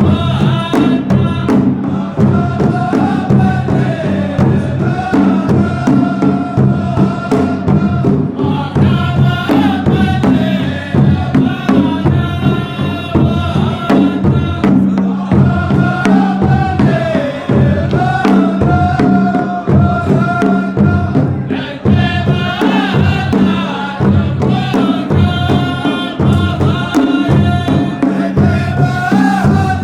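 Music: chanted vocals over a steady drum beat.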